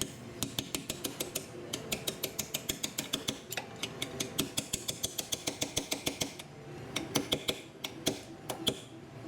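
Fast, even metal-on-metal clicking from hand tools working a seized suspension control arm bolt out, about six clicks a second. The run stops about six seconds in, followed by a few louder, irregular knocks.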